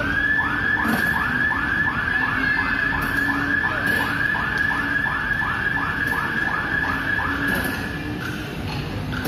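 Electronic warning siren of an amusement ride, sounding while riders take their seats before it starts. It opens with a rising tone, then warbles in quick repeated sweeps, about three a second, and stops about eight seconds in.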